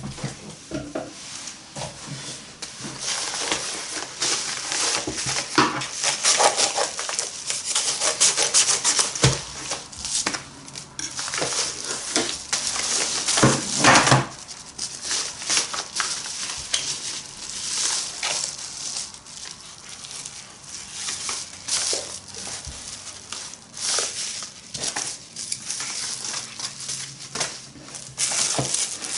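Packaging being handled and opened: irregular rustling, rubbing and crinkling with scattered clicks and knocks, busiest around the middle.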